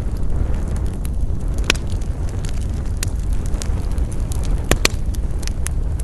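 Wood campfire crackling: irregular sharp pops and snaps, a few louder ones about two seconds in and a close pair near the five-second mark, over a steady low rushing noise.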